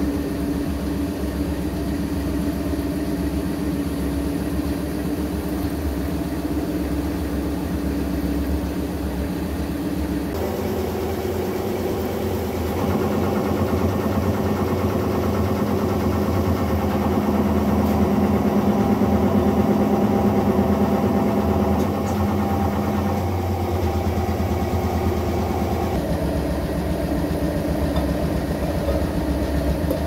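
Hydraulic press running with a steady machine drone. About ten seconds in the note changes and grows louder while the ram comes down to deep-draw a metal disc into a kettle body, then it settles back to the earlier drone near the end.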